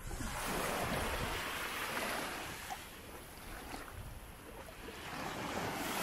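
Sea waves washing in: one surge rushes up right at the start and hisses away over about three seconds, and another builds near the end, over a low steady rumble.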